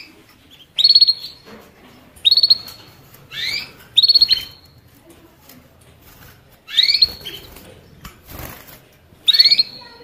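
A finch calling: short upward-sweeping chirps alternating with quick trills, seven or so calls spaced about a second or more apart.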